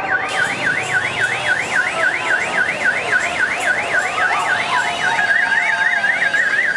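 Electronic car alarm siren sounding in rapid rising sweeps, about three a second, switching about five seconds in to a quicker, narrower warble.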